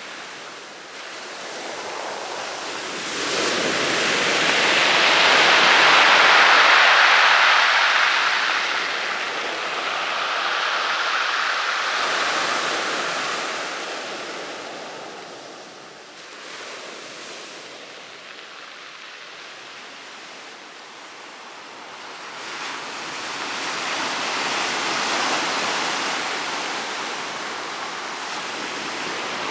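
Rough sea waves breaking on a pebble beach and washing back over the stones, swelling and ebbing in slow surges. Loudest a few seconds in, with a quieter lull past the middle, then building again near the end.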